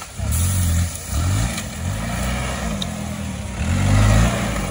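Offroad jeep's engine revving in repeated surges, the pitch climbing and dropping about four times, loudest near the end.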